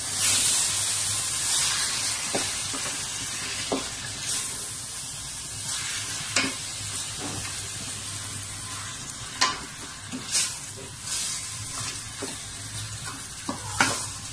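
Wooden spoon stirring chicken in a stainless steel pot, with scattered scrapes and knocks against the pot, over a steady sizzle as the chicken starts to cook.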